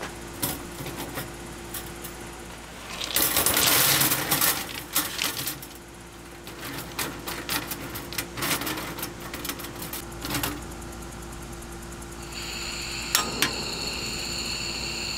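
Stones clattering and clinking into a metal collapsible steamer basket, in a loud dense rattle a few seconds in and scattered knocks after. Near the end a gas stove burner comes on with a steady hiss and two sharp igniter clicks as it lights.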